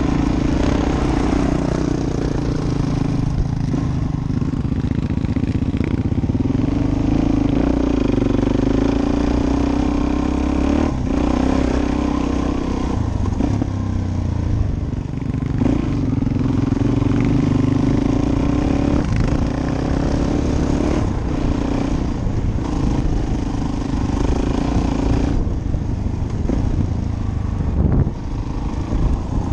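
Suzuki DR-Z400S's single-cylinder four-stroke engine running under way on a gravel track, its pitch rising and falling with the throttle, with scattered knocks as the bike rides over bumps and stones.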